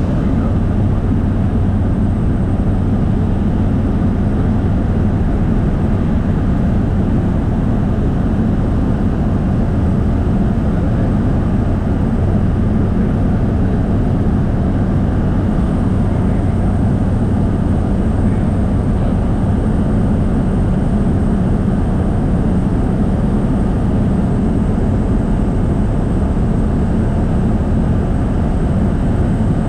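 Propeller aircraft in flight: engine and propeller drone holding steady and loud, with a constant low hum and no change in pitch.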